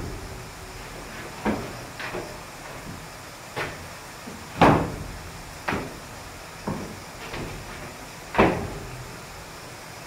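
A series of irregular knocks and clunks, about eight in all, with the loudest near the middle.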